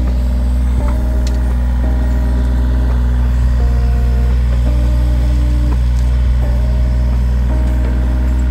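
John Deere mini excavator's diesel engine running steadily while it digs, with a hydraulic whine whose pitch shifts every second or so as the arm and bucket are worked.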